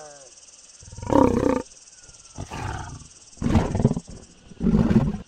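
Lions growling in four short, rough bursts about a second apart; the second is quieter than the others.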